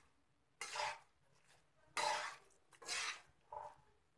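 Metal spatula scraping and stirring fava beans and potatoes in a metal pan, four separate strokes roughly a second apart.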